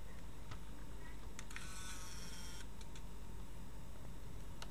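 Canon PowerShot SX100 IS switched on: a click, then the zoom lens motor whirs for about a second as the lens extends, now moving freely instead of jamming. Small mechanical clicks come before and after, with one sharper click near the end.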